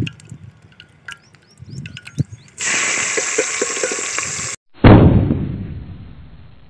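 Chopped masala tipped into hot ghee in an aluminium pot, sizzling loudly and steadily for about two seconds before cutting off. Then a loud low boom that dies away over about two seconds.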